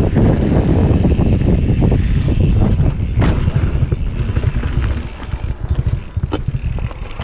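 Mountain bike riding over a rough trail: a heavy rumble of wind buffeting the action camera's microphone and tyres on the dirt. Two sharp knocks from the bike over bumps come about three and six seconds in, and the rumble eases a little from about five seconds in.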